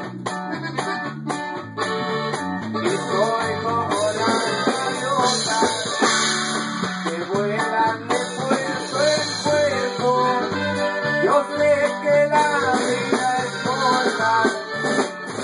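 A band playing live, led by an accordion, with a plucked guitar-type instrument and a bass line stepping back and forth between notes.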